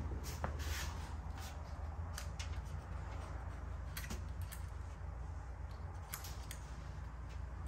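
Scattered short, sharp clicks over a steady low hum.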